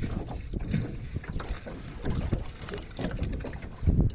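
Water lapping against the hull of a small boat, with irregular soft low thumps and a few faint clicks.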